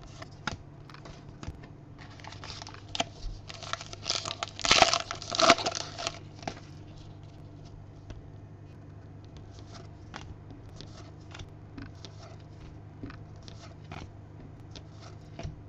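Baseball trading cards being handled and flipped one by one: light clicks and slides of card stock. About two and a half seconds in comes a louder rustle of cards rubbing against each other, peaking around five seconds in.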